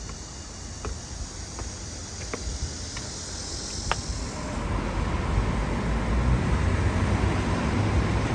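Low vehicle rumble that builds from about halfway through and keeps getting louder. Before it, a high hiss and a few sharp clicks.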